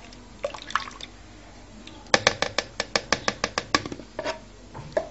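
Liquid cream being poured into a plastic mixing bowl. A little past halfway comes a quick, even run of about a dozen sharp taps, roughly seven a second, followed by a few scattered taps.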